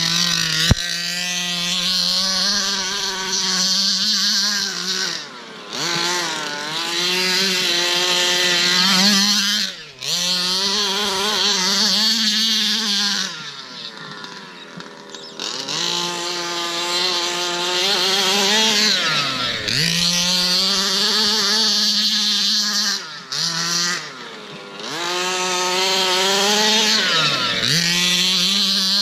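Two-stroke petrol engine of an HPI Baja 5B 1/5-scale RC buggy being driven hard, revving high with a wavering, chainsaw-like pitch. It drops back toward idle briefly about six times before revving up again.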